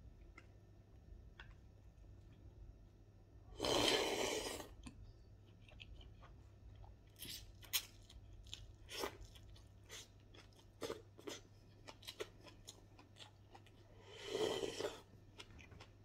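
A person chewing and crunching food, biting raw green vegetable sprigs, in a run of crisp crunches and clicks through the middle. There are two longer, louder bursts of noise, about four seconds in and near the end.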